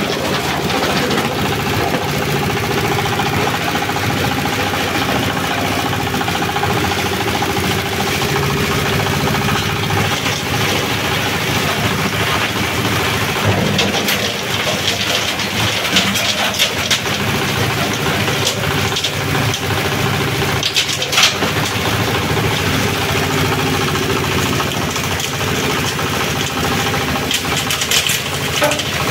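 Small single-cylinder diesel engine running steadily under load, driving a waste-sorting machine's rotating drum, with clicks and rattles now and then as the waste is churned and sifted inside.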